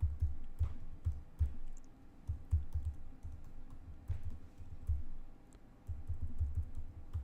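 Computer keyboard being typed on: irregular keystrokes, a few a second, heard mostly as dull low thuds with faint clicks, pausing briefly twice. A passphrase is being typed in.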